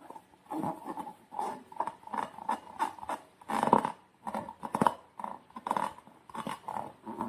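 Slime and rubber balloons being handled, making a run of short, irregular squishing and rubbing sounds, about two or three a second.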